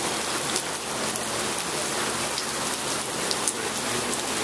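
Heavy storm rain falling steadily into a puddle on concrete: a dense, even hiss of drops striking water, with scattered sharper single-drop ticks.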